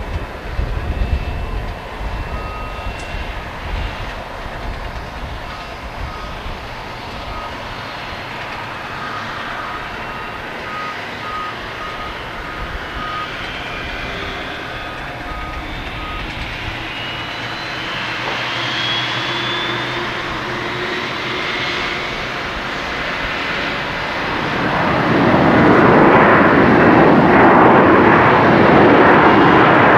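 Boeing 737-700's CFM56 jet engines on a landing: a steady jet whine through the approach and touchdown, then a sudden, much louder rush of engine noise about 25 seconds in as the engines spool up for reverse thrust on the rollout.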